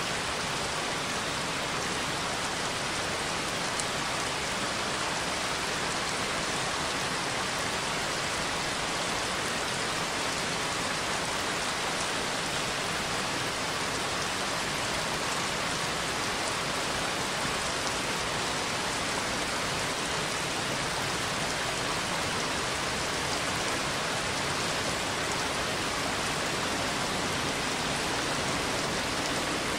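Recorded rain falling steadily, an even hiss with no thunder or single drops standing out.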